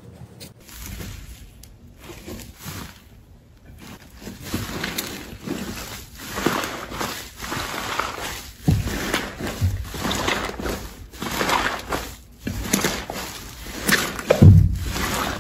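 Slime being squeezed, stretched and poked by hand, making irregular squishing sounds with sharp wet pops. The loudest pop lands near the end.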